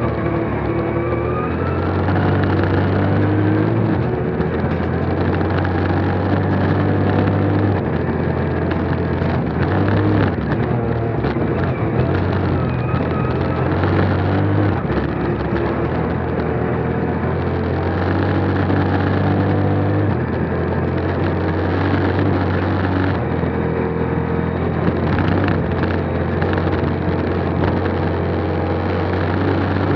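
Ford Fiesta R2T rally car's turbocharged three-cylinder engine heard from inside the cabin at full stage pace, its pitch climbing and stepping down again and again through gear changes. Underneath runs a steady rumble of tyres on gravel, broken by scattered sharp knocks.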